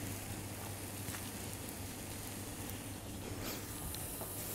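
Faint, steady sizzle of an egg omelet frying in oil in a pan, over a low steady hum.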